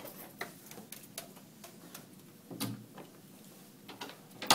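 Footsteps on a hard tile floor, a string of light irregular clicks, with a sharper knock near the end.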